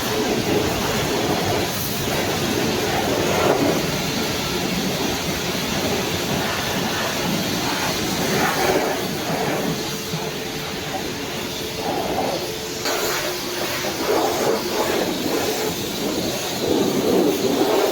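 High-pressure car-wash wand spraying water against the underside of a car: a steady rushing hiss that swells and eases as the spray moves.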